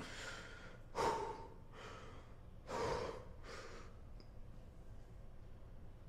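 A man breathing heavily while flexing: about five forceful breaths in and out, the loudest about a second and three seconds in, then quiet.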